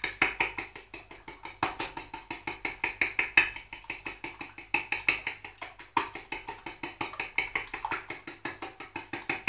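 Two eggs being beaten with a fork in a deep dish: fast, even clinks of the fork against the dish, about eight a second.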